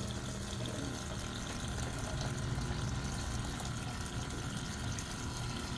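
Water running steadily from a bottled water dispenser's spout, with the dispenser's pump humming.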